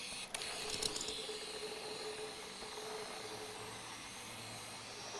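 Electrostatic powder-coating gun spraying, a steady hiss of low-pressure air and powder, dropping out briefly just after the start.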